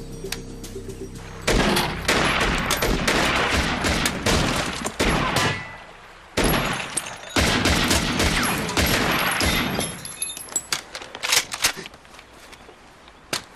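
Several guns, a pistol among them, fired in rapid volleys: a long run of shots starting about a second and a half in, a short break, a second long run, then a few scattered shots tapering off, with one last shot near the end.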